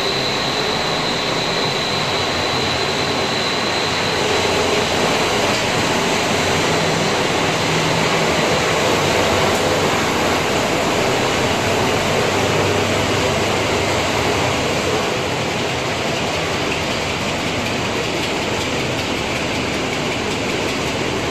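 Industrial breadcrumb production line running: a steady, dense machinery noise of motors and crushing equipment, with no clear rhythm or pauses.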